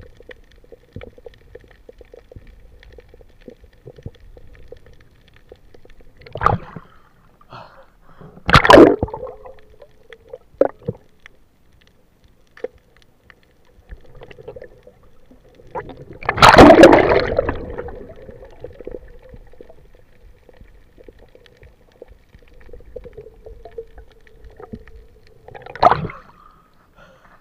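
Muffled underwater water noise picked up by a submerged camera, with a faint steady hum, broken by a few loud gurgling water rushes, the biggest about nine and seventeen seconds in, and another surge just before the end as the camera breaks the surface.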